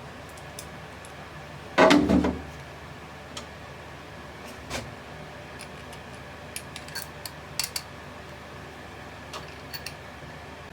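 Small metal objects clattering once, loudly, about two seconds in, followed by scattered light clicks and taps over a steady background hiss.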